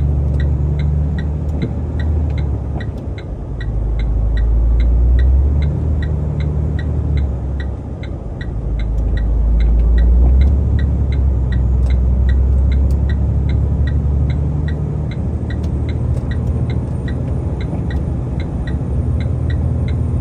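Semi-truck's diesel engine heard from inside the cab, a deep rumble that swells and eases twice as the truck works the snowy climb. A steady fast ticking runs alongside, about two to three clicks a second.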